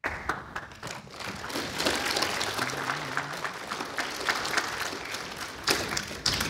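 Congregation applauding, many hands clapping, which cuts off suddenly near the end.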